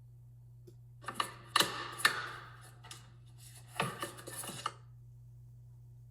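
Clicks and clatter of an electric space heater's back cover and screws being handled while the heater is put back together. The sounds come in two bursts, one about a second in and another around four seconds.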